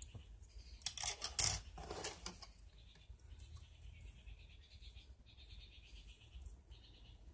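Clear plastic packaging crinkling for about a second and a half as model-kit parts bags and plastic runners are handled. A repeated high chirping goes on in the background throughout.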